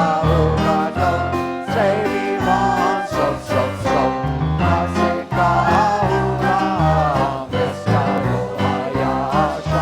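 Worship music with singing over a bass line and a steady beat.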